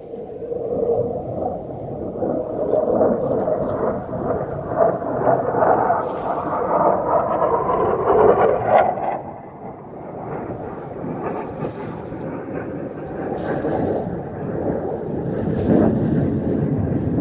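Wind buffeting the microphone over the wash of the sea against the rocks, with a few short splashes and knocks as a bucket of seawater is hauled up on a rope.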